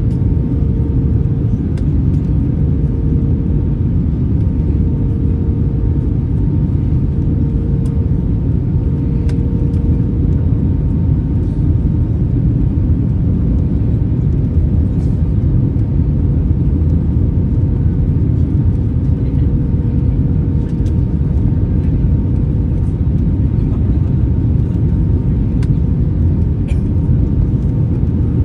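Steady cabin noise inside an Airbus A321 in flight: a loud, even low rumble of airflow and jet engines, with a constant hum running through it.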